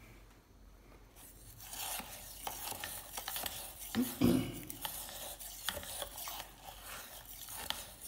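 A metal table knife stirring undissolved salt into hot water in a plastic jug. It starts about a second in and goes on as a steady gritty scraping with small clicks of the blade against the sides. A brief louder bump comes about four seconds in.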